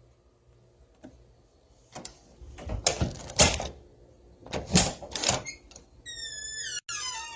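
Old door: a couple of faint clicks, then two groups of loud clunks and rattles from the door and its latch, about three and five seconds in. About six seconds in the hinges start a long creak that falls steadily in pitch.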